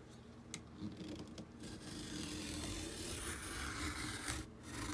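A craft cutter blade drawn along a ruler through box cardboard, cutting it in two: a few light clicks, then one continuous rasping cut of about two and a half seconds.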